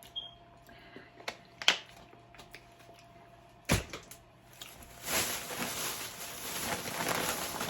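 A few light taps and knocks, then from about five seconds in the steady crinkling of a plastic chip bag being handled.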